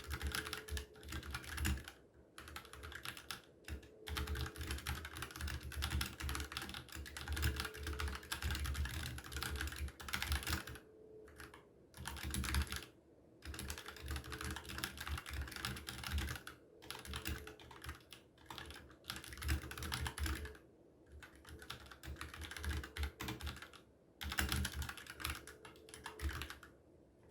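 Typing on a Dareu EK871 wireless 70% mechanical keyboard with Kailh Red linear switches: rapid, continuous keystrokes broken by short pauses every few seconds.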